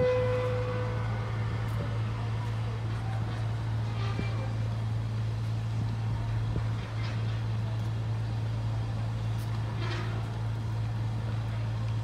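Steady low drone of a ship's engine, with a short held tone in the first second. Bird calls come through about every three seconds.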